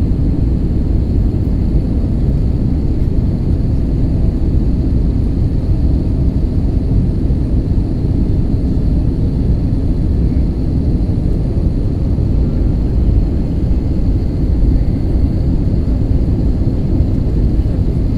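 Airbus A321neo airliner in flight, a steady low rumble of engines and airflow with a faint high steady tone above it.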